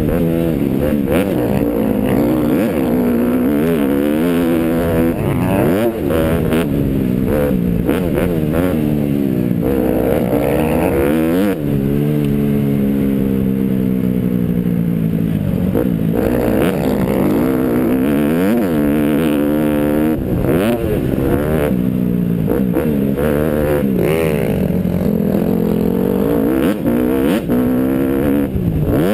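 Dirt bike engine ridden hard on a dirt track, revving up and dropping back through the gears so that its pitch climbs and falls over and over, heard from the rider's helmet camera.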